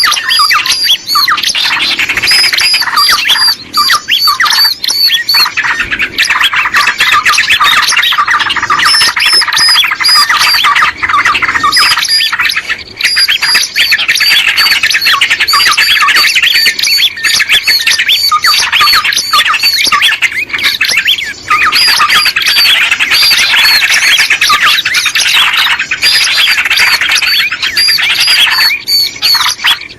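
Dense, continuous chattering and squeaky calls of many small birds, a bird-lure recording used to draw small birds in.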